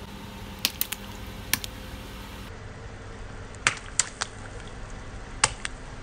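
Small water balloons bursting under a slowly rolling car tyre on concrete: a series of sharp pops and snaps, a few about a second in and more later on, over a steady low background noise.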